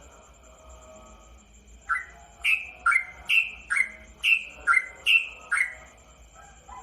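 Yellow-vented bulbul (trucukan) singing: a quick run of about nine loud whistled notes, alternating low and high, starting about two seconds in after some faint chatter.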